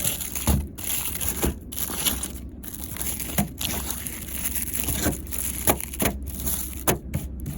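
Rustling and crinkling handling noise with scattered soft knocks, as firecrackers and their packaging are handled; no firecracker goes off.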